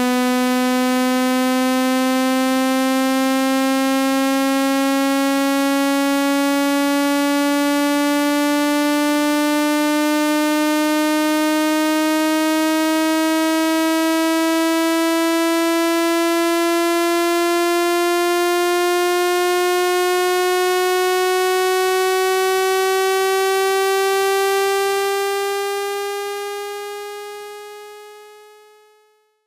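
Synthetic speaker-cleaning tone for driving water out of a phone speaker: one buzzy electronic tone with many overtones, rising slowly and steadily in pitch, then fading out over the last few seconds.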